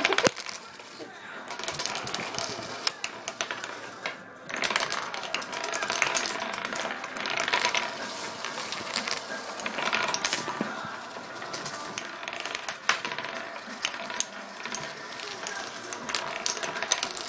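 Several wooden nickels spinning and wobbling on a wooden tabletop, a continuous rattling whir that swells and fades, broken by sharp clacks as discs tip over or knock into others.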